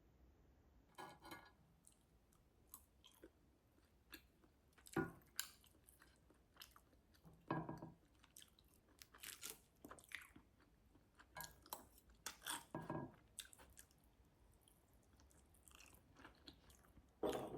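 A person chewing and biting food, with irregular crunches and small clicks every second or two.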